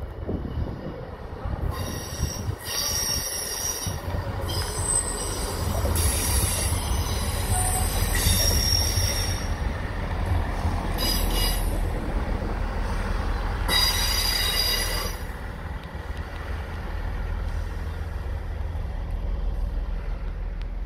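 Class 158 diesel multiple unit passing slowly round a tight curve, its diesel engines giving a steady low rumble. The wheel flanges squeal high and shrill on the curved rail in four spells, loudest about two, six, eleven and fourteen seconds in.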